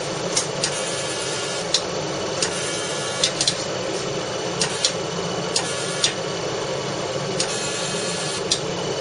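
CO2 fractional laser machine running with a steady hum and hiss, broken by irregular sharp clicks, about a dozen in nine seconds, as the laser fires.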